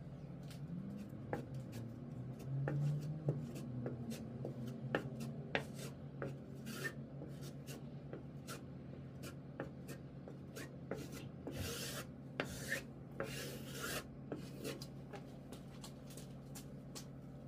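Edge of a drywall offcut scraping and rubbing wet joint compound over a mesh-taped drywall patch, with many small taps and clicks and two longer rasping scrapes about two-thirds of the way through.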